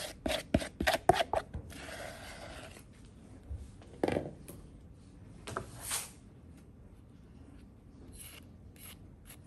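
A metal spoon clinking and scraping against a plastic mixing bowl while scooping sponge batter: a quick run of light taps in the first second and a half, then a few scrapes and one louder knock about four seconds in as the batter is spooned out and scraped off with a spatula.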